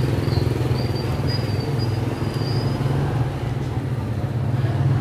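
A steady, loud engine rumble with a low hum that starts and stops abruptly. A faint high whine sounds over it in the first half.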